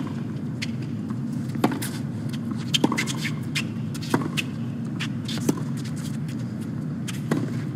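Tennis ball hit back and forth in a baseline rally on a hard court: sharp racket strikes about every one to one and a half seconds, with softer ball bounces between them, over a steady low background hum.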